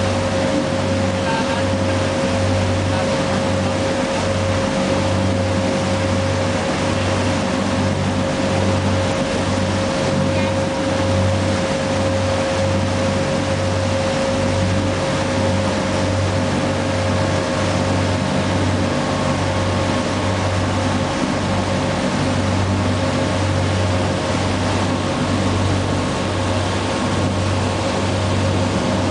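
Bateau-mouche tour boat's engine running steadily, a low throb with a steady whine above it, over the rush of the churning wake.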